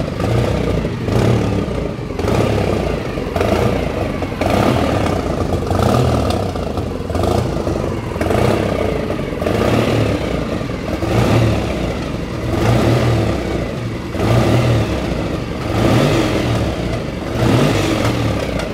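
1979 Triumph Tiger 750 (TR7V) parallel-twin engine running and being revved over and over, the revs rising and falling about once a second. It sounds healthy and smooth.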